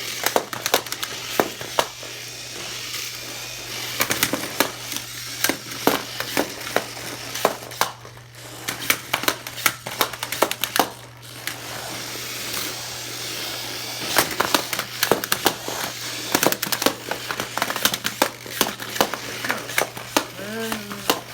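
Small RC combat robots fighting, a big spinner against a big wedge: rapid, irregular clattering hits and scrapes as the bots collide.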